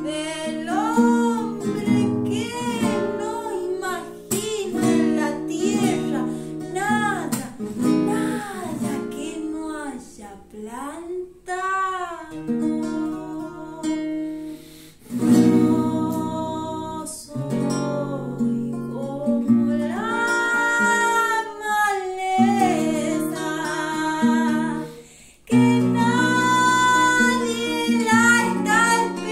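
A woman singing a song to acoustic guitar accompaniment, the guitar playing chords under her voice. Her sung lines hold long, wavering notes; just before the end she stops briefly, then comes back in louder.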